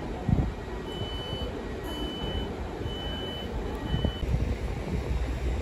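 An electronic warning beeper sounds four times at one high pitch, each beep about half a second long and about a second apart, over the low rumble of diesel trains standing in the station.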